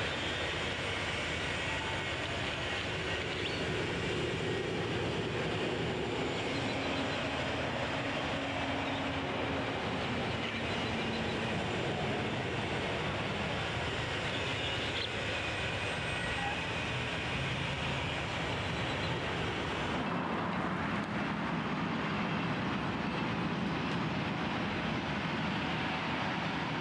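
Steady background noise of distant machinery, with a faint low drone that drifts slowly in pitch. The sound changes in character about twenty seconds in.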